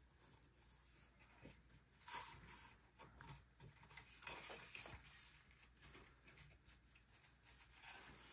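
Faint rustling of paper being handled, in a few short spells about two, four and eight seconds in.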